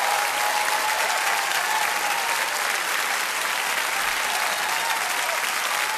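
A crowd applauding steadily, with faint cheering voices in the clapping.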